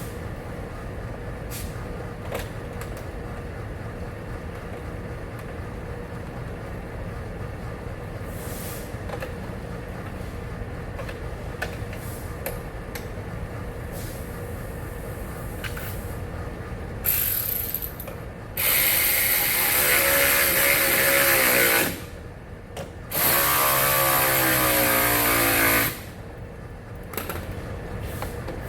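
A power drill runs in two bursts of about three seconds each, after a brief first blip. Before that there is a stretch of faint clicks and handling over a low hum.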